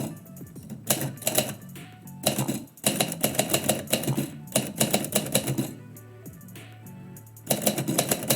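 Typewriter keys striking in quick bursts of clicks, with short pauses between bursts, over background music.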